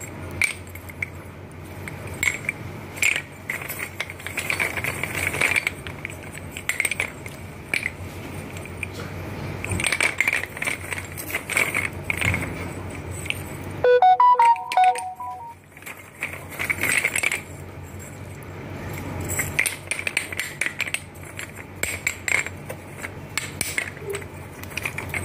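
Hard-baked clay pipes clinking and rattling against one another as a hand stirs through a crate full of them, a steady light clatter. About halfway through, the clatter stops briefly for a short run of clear pitched notes.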